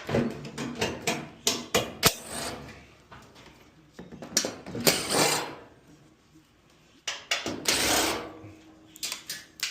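Metal clicks, clatter and scraping of a screwdriver and screws working on a dryer's sheet-metal cabinet as the front bulkhead screws come out. Two longer scraping noises of about a second each come in the middle and near the end.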